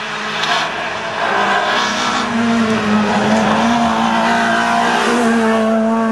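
Rally car engines running hard at high revs as the cars drive the stage on a tarmac road. The engine note slides up and down early on, then holds a mostly steady pitch, with a few short hissing bursts over it.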